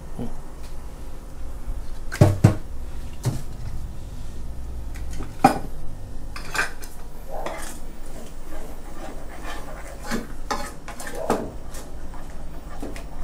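A metal spoon clinking and scraping against a stone-coated frying pan while a thick sauce is stirred, in scattered, irregular knocks over a low steady hum.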